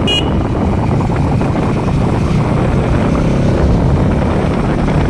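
Motorcycle under way: a steady engine drone mixed with wind rush over the microphone.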